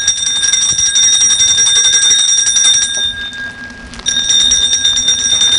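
Small brass ship's bell rung rapidly by hand, a fast continuous ringing in two long runs with a break of about a second just past the middle.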